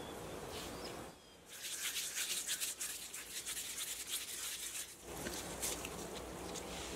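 Dough being rolled and shaped between gloved hands: a dry, scratchy rubbing of many quick short strokes, starting about a second and a half in and stopping about five seconds in.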